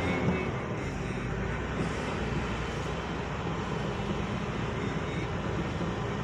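Engine and road noise of a vehicle driving slowly, heard from inside the cab: a steady low rumble with no sudden events.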